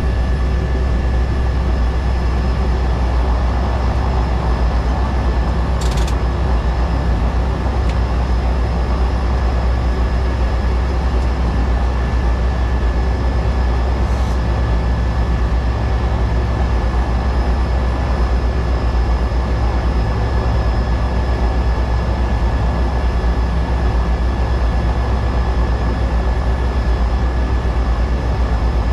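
Cessna 208B Caravan's PT6A turboprop engine and propeller running steadily in flight: a constant deep drone with a steady high whine above it.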